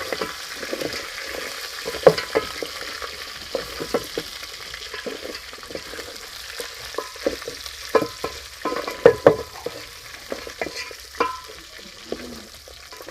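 Francolin meat frying in a pot with a steady sizzle, with repeated clinks and scrapes of a utensil against the pot as it is stirred.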